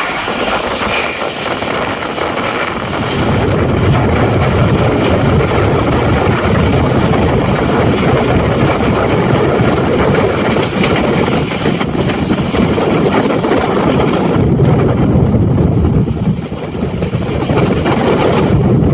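Tezgam Express passenger train running at speed, heard from aboard: a steady, loud rumble of wheels on the rails mixed with rushing air. The hiss dips for a moment about fifteen seconds in, then comes back.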